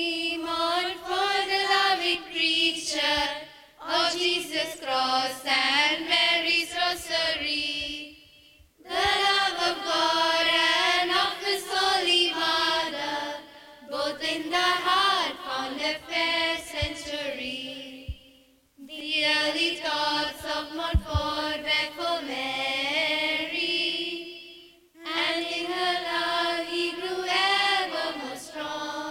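A group of teenage schoolchildren, mostly girls, singing a song together as a choir, in phrases of about five seconds with short breaks between them.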